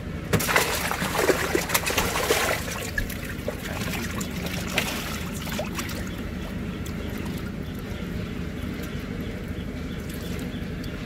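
Pond water splashing and sloshing, loudest and busiest for the first two and a half seconds, then fainter, over a steady low hum.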